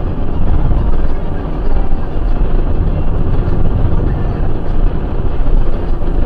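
Steady in-cab rumble of a vehicle cruising at motorway speed: engine and tyre/road noise heard from inside the cab.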